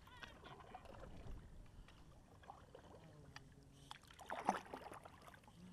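Kayak paddle stroke: the blade dips into the water with a splash about four and a half seconds in, the loudest moment; the rest is faint water sound.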